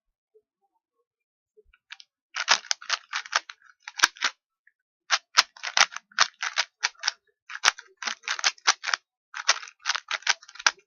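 Rubik's Cube being turned quickly by hand: rapid runs of plastic clicks and rattles as the layers twist. They come in bursts of about a second with short pauses between, starting about two seconds in.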